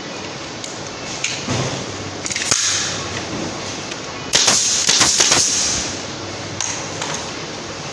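Pneumatic air gun firing fasteners into wood: a short burst of shots with a hiss of air a little over two seconds in, then a louder quick run of several shots about halfway through, over a steady background noise.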